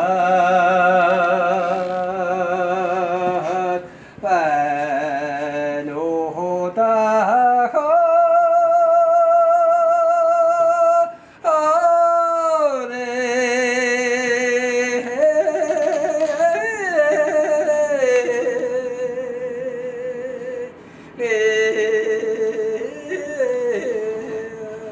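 A single voice singing a slow, drawn-out melody: long held notes with wide vibrato, sliding and turning between pitches, with short breaths about four, eleven and twenty-one seconds in.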